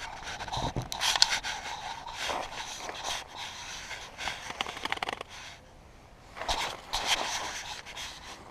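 Dry sticks and debris rustling and scraping in irregular spells, with many small clicks and a short lull near the middle.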